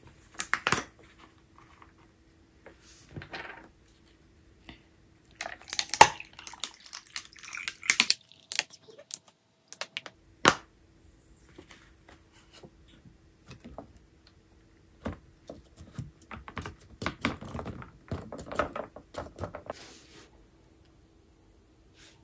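Typing on a laptop keyboard: scattered runs of key clicks, with a few sharper knocks, the loudest about six and ten seconds in.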